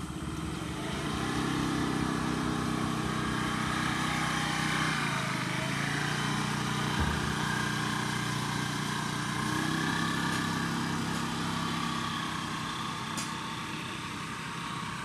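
Small motor scooter engine running as it pulls away, its pitch dipping briefly about five seconds in and the sound easing off near the end.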